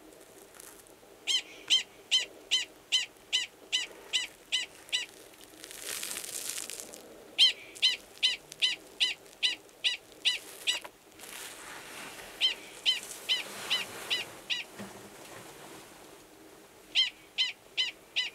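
Male Gunnison's prairie dog giving its mating call: four bouts of short, sharp, high chirps, about three a second, with short pauses between bouts. The mating call sounds the same as the species' alarm call; here it is a male calling to an estrous female waiting below ground in a nearby burrow.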